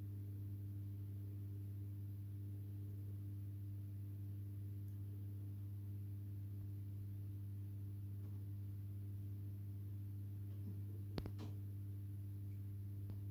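Steady low hum of an aquarium filter pump, with one faint click about eleven seconds in.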